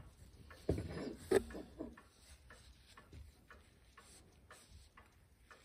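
Microfiber cloth buffing a waxed brass clock bezel: faint, irregular soft rubs and light clicks as the ring is turned in the hands, loudest in the first couple of seconds.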